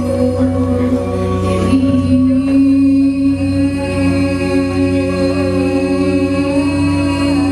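Slow chant-like singing: voices holding long sustained notes over a steady low drone, the main note stepping up in pitch about two seconds in.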